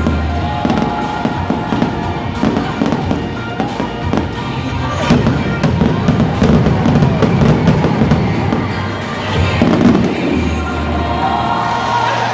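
Fireworks going off: dense crackling with sharp bangs, the loudest about five seconds in and again near the end. Music plays underneath.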